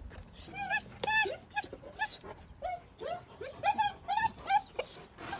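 Puppy whining and squeaking in a rapid string of short, high yelps, about two or three a second. It is frustrated at being unable to get to its food past a door.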